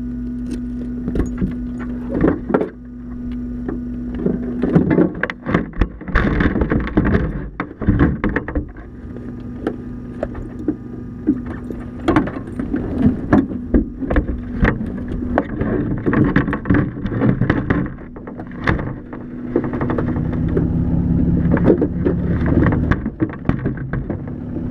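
Knocks, clicks and rustling of gear being handled in a cramped racing cockpit over a steady hum that fades in and out. From about three-quarters of the way in, a low engine rumble as the fire rescue truck pulls up alongside.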